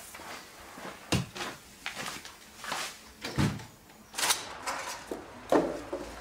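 A door shutting and other scattered door and household handling sounds: several light clicks and knocks, with a heavier thump about three and a half seconds in.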